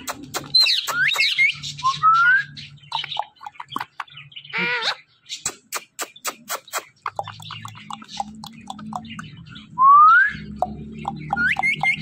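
Indian ringneck parakeet whistling and chirping: quick high chirps about a second in, a rising whistle about two seconds in, a short harsher call near the middle and a loud rising whistle near the end, amid a run of sharp clicks. A low steady hum runs underneath.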